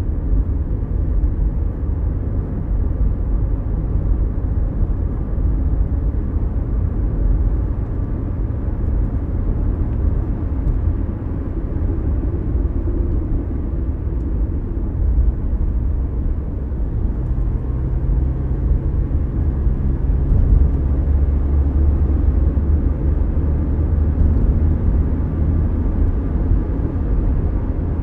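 Mazda CX-5 small SUV driving on a surface street, heard from inside the cabin: a steady low engine and road rumble. A little past the middle an engine tone stands out for a few seconds, and the rumble grows slightly louder after it.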